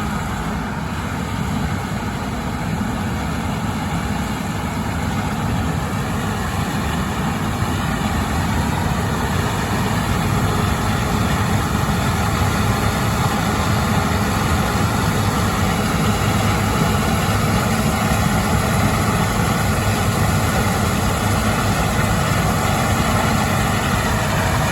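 Heavy farm machinery running steadily: an unbroken engine drone with a strong low rumble, slowly growing a little louder.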